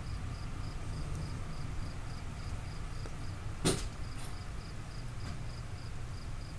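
Crickets chirping in an even, steady pulse of about four to five chirps a second, over a low background rumble. A single sharp click comes a little past halfway.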